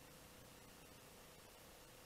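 Near silence: a faint steady background hiss with a faint steady hum.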